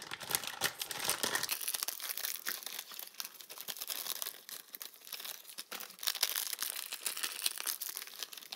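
Plastic almond-flour packet crinkling and rustling in the hands as it is squeezed and tipped over a steel mixing bowl to pour the flour out, a dense run of small crackles.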